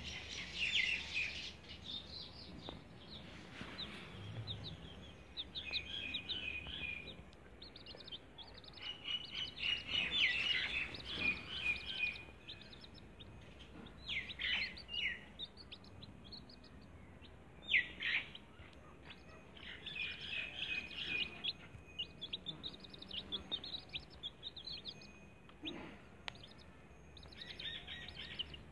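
Domestic chicks peeping: bursts of rapid, high peeps come and go, with a few single, louder peeps that fall in pitch, the sharpest about eighteen seconds in.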